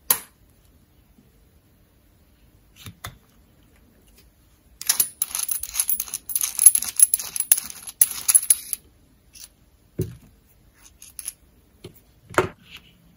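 Handling noises from a soldering iron being taken apart. A sharp click comes at the start, then a few seconds of rapid, scratchy clicking from about five to nine seconds in, as the knurled metal nut is unscrewed on its threads. A dull knock follows about ten seconds in and a sharp click near the end.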